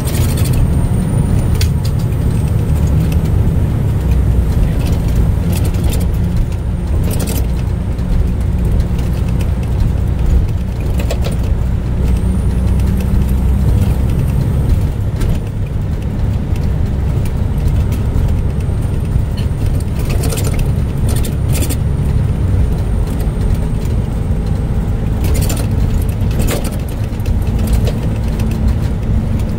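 Car driving slowly, its engine running with a steady deep drone whose note shifts about halfway through, with scattered rattles and clicks.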